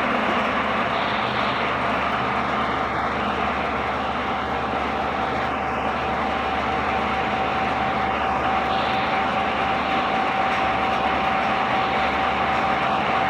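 Pellet-making machinery running with a steady, loud mechanical noise; a steady whine joins in about two seconds in and holds.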